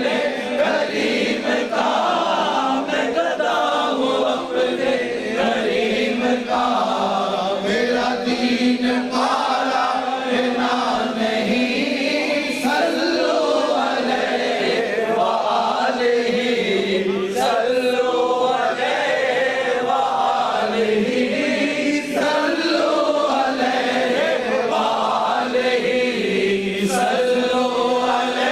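Several men singing a naat, a devotional song in praise of the Prophet Muhammad, together into microphones as a chant-like group vocal, held on long sustained lines.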